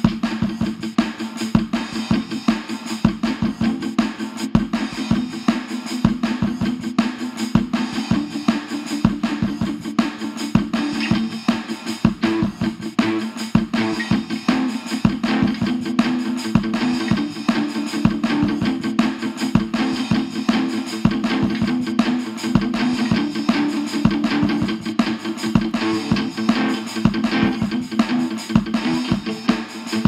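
Music with guitar over a steady drum beat.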